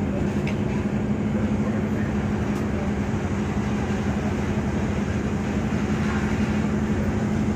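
Ship's engine running steadily during berthing: a constant low drone with a steady hum through it.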